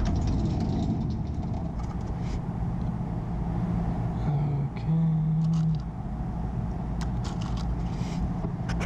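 Handling noise and light clicks as a steel tool-cabinet drawer of screw assortments is opened and searched, over a steady low shop rumble. A short, louder low hum comes about four to five seconds in.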